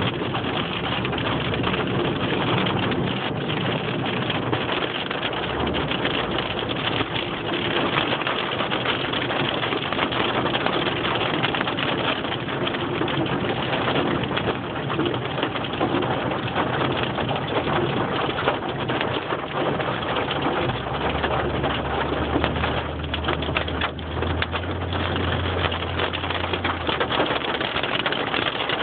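Hail and heavy rain falling, a loud dense steady patter. A low steady hum comes in about two-thirds of the way through and fades out near the end.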